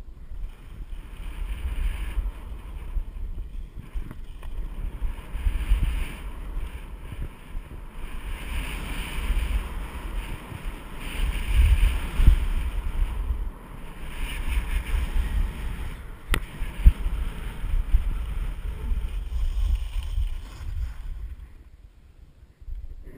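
Wind buffeting a ski-mounted action camera's microphone with a deep fluctuating rumble, over the hiss and scrape of skis carving on packed, tracked snow during a fast run. One sharp click about sixteen seconds in, and the noise dies down near the end as the skier slows.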